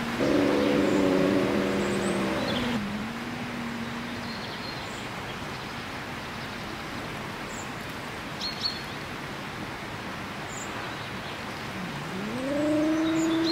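European grey wolf howling: a long, steady howl with several pitches at first, ending about four seconds in. Near the end a new howl rises in pitch and then holds steady. Faint bird chirps come in the pause between.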